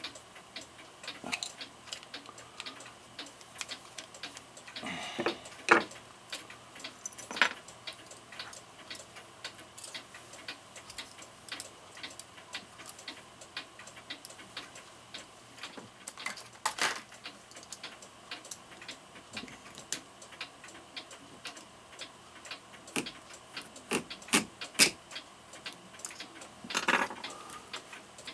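A mechanical clock ticking steadily, with a few louder metallic clicks and clinks from small metal parts and tools being handled.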